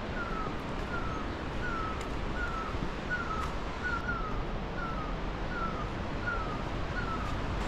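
A bird calling over and over: a short, thin falling note about every two-thirds of a second, once doubled, over a steady rushing background noise.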